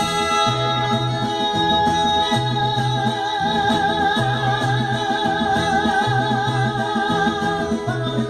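Mariachi band playing: guitarrón and guitars keep a steady, repeating bass-and-strum rhythm under long held melody notes with a wide vibrato.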